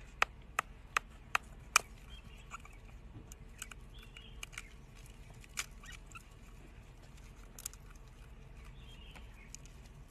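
Eggshell being tapped and cracked by hand: five sharp clicks in quick succession in the first two seconds, then scattered small cracks as the shell is picked off, with a few faint high squeaks.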